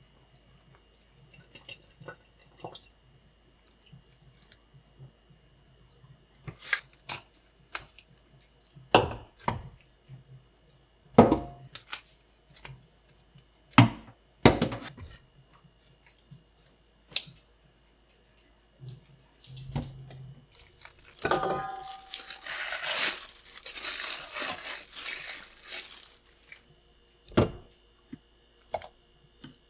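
Kitchen handling sounds: scattered knocks and clinks of dishes and utensils, and a few seconds of rustling and tearing of packaging about two-thirds of the way through.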